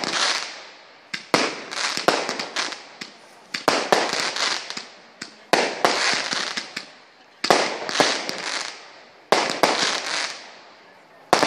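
Consumer category 2/3 fireworks going off: a sharp bang about every two seconds, five or so in all, each followed by scattered smaller pops and crackle that fade away before the next.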